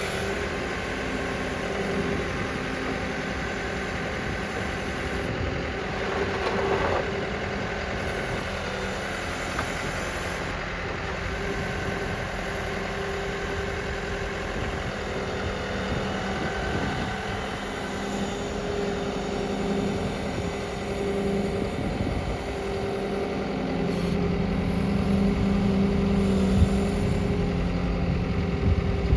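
Hydrema 906F backhoe loader's diesel engine running steadily. Near the end it gets louder for several seconds, with a deeper note.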